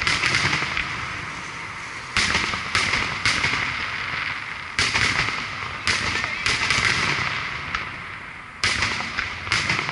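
Aerial firework shells bursting: about eight sharp bangs at irregular intervals, each followed by a fading crackle.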